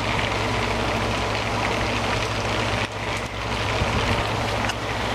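Heavy rain pouring steadily, with a steady low hum underneath.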